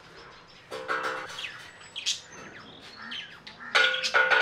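Birds calling outdoors: two louder calls, about a second in and near the end, with short rising chirps between them.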